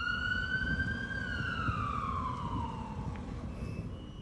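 Ambulance siren wailing: a single tone holds high, then slides slowly down in pitch from about a second in and fades out, over a low rumbling background.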